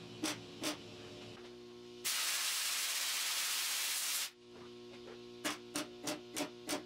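Background music with a steady beat, broken about two seconds in by a loud steady hiss of compressed air from a blow gun cooling a fresh weld on a steel fender panel, which cuts off sharply after about two seconds before the music resumes.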